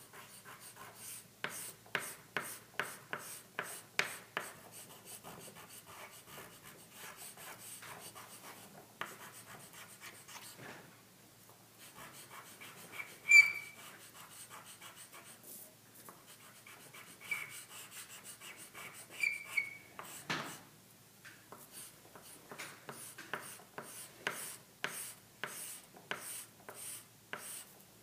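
Stick chalk scraping across black paper in quick back-and-forth colouring strokes, with steadier rubbing through the middle. A sharp high squeak comes about a third of the way in, and two fainter squeaks follow a few seconds later.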